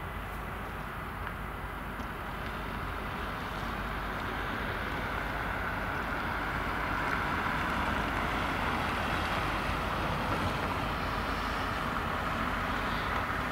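Steady machinery rumble and hiss of the passenger and train ferry Mecklenburg-Vorpommern as it comes in toward the harbour. The noise grows gradually louder over the first half as the ship approaches.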